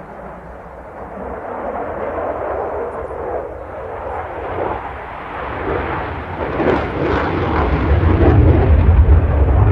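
Jet engine of a JAS 39C Gripen fighter in a display pass, a broad roar that grows steadily louder. A deep rumble builds over the last couple of seconds, with rough crackling in the middle.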